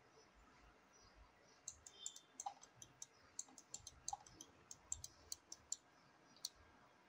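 Faint, quick run of computer mouse and keyboard clicks, a few sharp clicks a second, starting almost two seconds in and stopping near the end, over quiet room tone.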